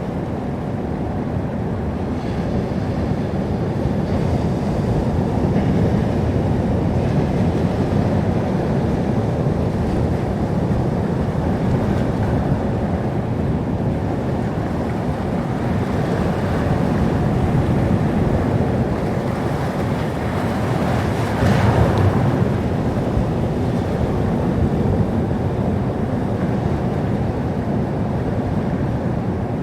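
Sea surf: waves washing in steadily, swelling and easing, with one louder wave breaking about two-thirds of the way through.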